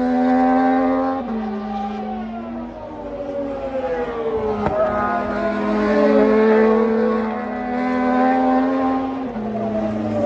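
Several Moto2 race bikes' Triumph 765 cc three-cylinder engines howling through a corner. Their pitch falls as they brake and shift down, then climbs in steps through the gears as they accelerate out.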